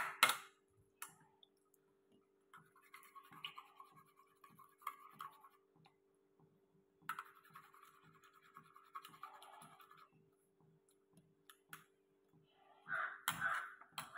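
Spoon beating eggs in a ceramic bowl: soft repeated scraping and tapping against the bowl at about two to three strokes a second, with a few sharp clinks near the start.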